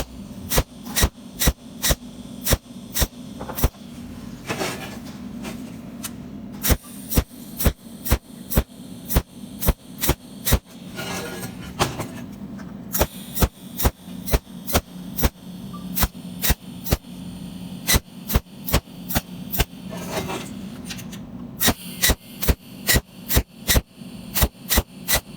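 TIG welding: a steady electrical hum with sharp clicks about two to three a second, coming in runs broken by a few short pauses.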